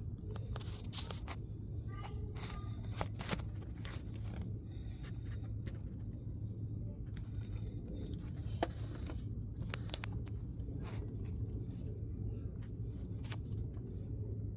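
Scattered sharp clicks and light taps of tools and engine parts being handled, over a steady low hum.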